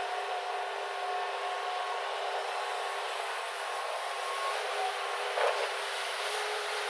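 Steady mechanical running noise with a thin, steady whine, and a single short knock about five and a half seconds in.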